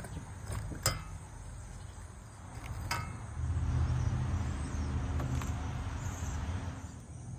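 Low engine rumble of a motor vehicle, growing louder about three and a half seconds in and easing off near the end, with two light clicks in the first three seconds.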